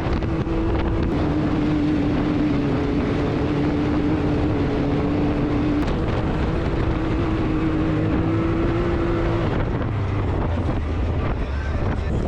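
A vehicle engine running at a steady pitch, its drone stopping about three-quarters of the way through, under heavy wind noise on the microphone.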